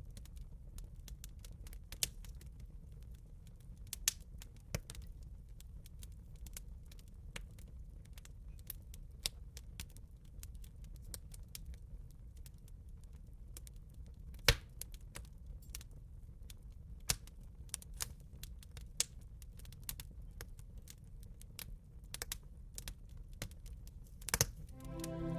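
Wood fire crackling: irregular sharp pops and snaps of burning wood, one louder pop about halfway through, over a low steady rumble. Soft music fades in near the end.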